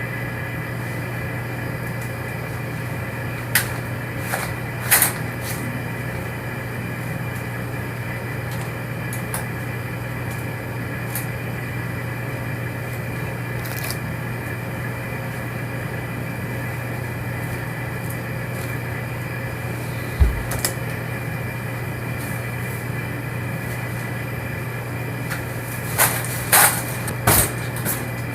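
Steady low hum of an unattended room, with a few scattered sharp clicks and knocks, a low thump about twenty seconds in, and a quick cluster of knocks near the end.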